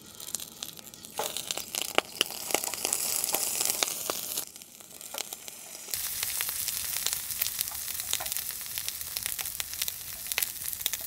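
Food frying in sesame oil in a pan on a portable gas burner: a steady sizzle with dense crackling and spitting. It eases off briefly about halfway through, then comes back louder.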